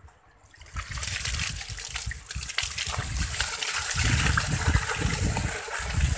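Water poured in a thick stream onto bare soil in a small brick-lined pit, splashing and gushing. It starts about a second in and grows heavier from about four seconds in.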